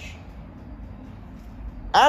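Quiet room tone: a low steady rumble with faint hiss and no distinct event.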